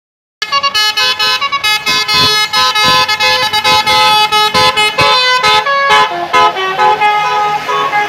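Basuri telolet bus horn playing a fast tune of short, rapidly changing horn notes, starting a moment in.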